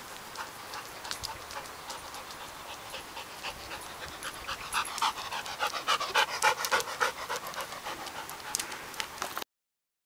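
A Briard dog panting in quick, rhythmic breaths that grow louder for a few seconds in the middle. The sound cuts off suddenly near the end.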